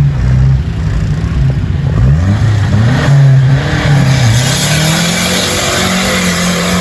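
A vehicle engine revving, its pitch rising and falling several times between steady stretches. A rushing hiss builds alongside it in the second half.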